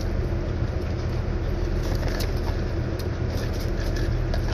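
Steady low engine rumble with a constant hum, and faint crisp crunches of an Ivy cracker being chewed.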